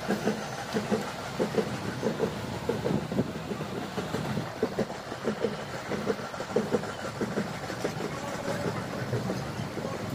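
A passenger train rolling slowly, heard from an open coach doorway: steady running rumble with an irregular clatter of wheels knocking over the rails, several knocks a second.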